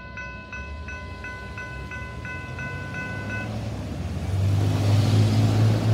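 Railroad crossing bell ringing about three strikes a second as the crossing gates lift after the train has passed; it stops about three and a half seconds in, once the gates are up. Then a low, steady vehicle engine drone grows loud as a pickup truck drives over the crossing close by.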